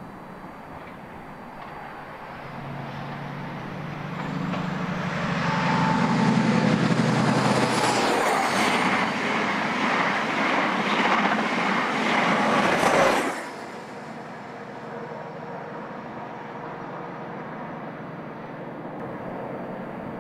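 InterCity 125 High Speed Train approaching and passing at speed: the diesel engine note of the leading Class 43 power car grows from about two seconds in, then the Mk3 coaches rush past with loud wheel and rail noise. About thirteen seconds in the sound drops suddenly to a quieter steady noise.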